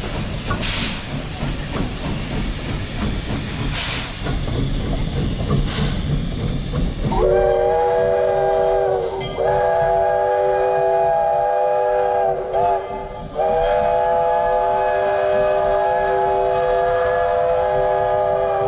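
Narrow-gauge steam locomotive No. 18 moving slowly, hissing steam with a few irregular exhaust puffs. About seven seconds in it sounds its steam whistle, several notes at once, in long blasts with two short breaks, the last held for over five seconds.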